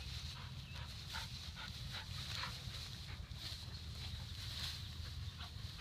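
Two dogs play-wrestling in tall grass: short, faint whimpers and grunts and the rustle of grass over a steady low rumble, with a sharp click near the end.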